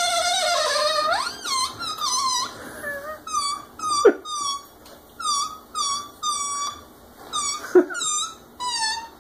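Air let out through the stretched neck of an inflated rubber balloon, squealing: one long wavering squeal, then a run of short squeals that slide down in pitch, about one or two a second, with a couple of sharper, louder squeaks. Heard through a TV speaker.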